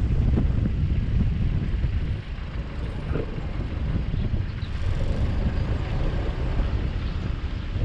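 Low, rumbling motor-vehicle noise with no clear engine tone, a little louder for the first two seconds.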